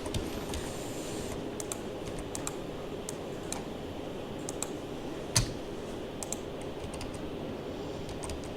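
Computer keyboard and clicks, scattered irregular keystrokes with one louder click about five seconds in, over a steady low hum.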